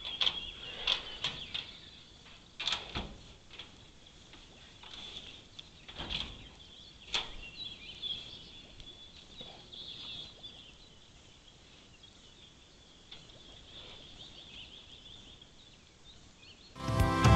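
Brown bear pawing and pushing at a metal bear-proof waste bin: scattered knocks and clanks with scraping between them, over a faint steady high-pitched background. Music comes in loudly near the end.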